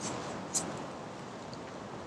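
Quiet outdoor background: a steady even hiss, with one brief sharp high tick about half a second in.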